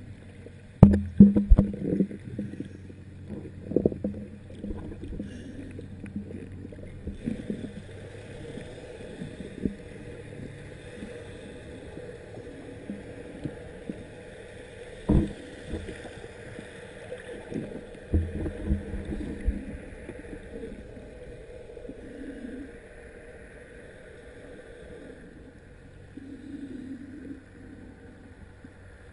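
Muffled underwater sound picked up by a camera held below the surface: water moving and gurgling, with scattered knocks and thumps, the loudest about a second in and at around 15 and 18 seconds, over a faint steady hum.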